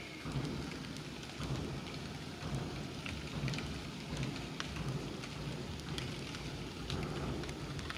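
Steady outdoor background noise: a low, uneven rumble with scattered faint ticks and clicks.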